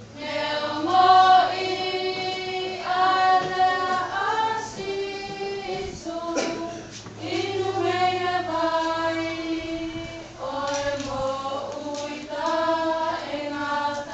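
A group of voices singing together in phrases of long held notes, with short breaks between phrases.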